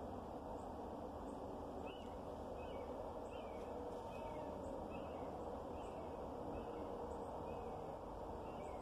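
Steady outdoor hiss with a small bird chirping over and over, about once or twice a second, and faint high ticks.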